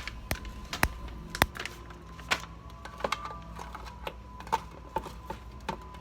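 Scattered light clicks and taps as chicken breast strips are poured into a pan and spread out in one layer, about ten irregular knocks over a faint steady hum.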